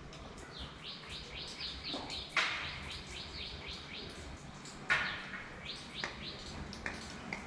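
A bird chirping a quick run of short, high, falling notes, a few each second. Two sharp knocks, about two and a half and five seconds in, are the loudest sounds.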